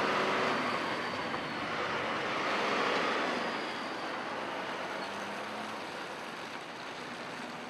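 Light propeller aircraft's engine and propeller noise as it moves along a runway, heard from a distance, strongest in the first three seconds and then slowly fading away.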